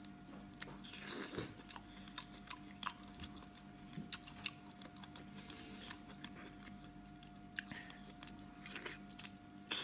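Close-up mouth sounds of biting and chewing a whole octopus: small scattered wet clicks, with louder bites about a second in and near the end. A faint steady hum sits under it.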